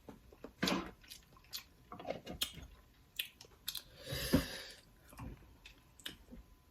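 Close-miked chewing and mouth sounds of someone eating: a string of short wet smacks and clicks, with one longer, louder wet sound about four seconds in.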